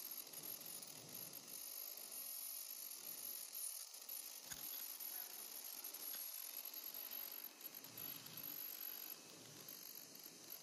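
Mask-making machinery running faintly: a steady high hiss with light mechanical clatter, and one sharp click about four and a half seconds in.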